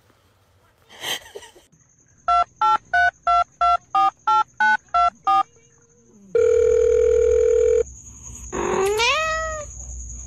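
Telephone touch-tone dialing: about ten short beeps of differing pitch, then a steady phone tone held for about a second and a half. Near the end a cat meows once, rising then falling in pitch. A short noise comes before the beeps, about a second in.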